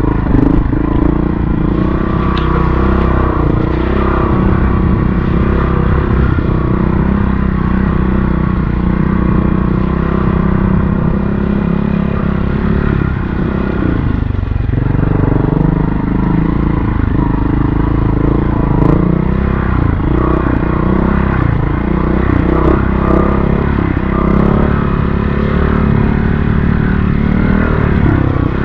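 Montesa Cota 4RT trials motorcycle's four-stroke single-cylinder engine running under riding load, the revs rising and falling with the throttle, with a brief dip in revs about halfway through before it picks up again.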